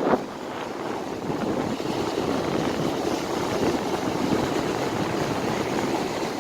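Sea waves washing on the shore, a steady, surging rush of surf mixed with wind on the microphone.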